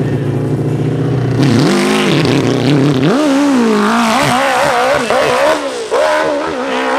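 Hillclimb motorcycle engine running steadily at the start line, then opened up about a second and a half in, its revs rising and falling over and over as it climbs the dirt hill.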